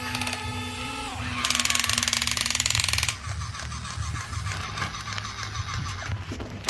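Small toy gear motors whirring with fast clicking of plastic gears. About a second and a half in comes a louder burst of rapid ratcheting that stops abruptly near three seconds; softer irregular clicking follows.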